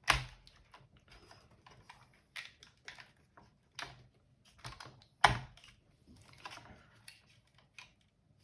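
Irregular clicks and knocks of plastic parts being handled and worked loose while a Eufy RoboVac robot vacuum is taken apart. Two sharper knocks stand out, one at the start and a louder one about five seconds in.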